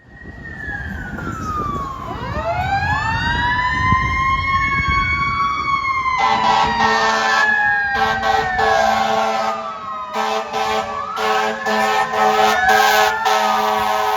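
Fire apparatus sirens wailing, several rising and falling tones overlapping, over a low engine rumble. About six seconds in, a fire engine's air horn starts sounding in repeated blasts over the sirens.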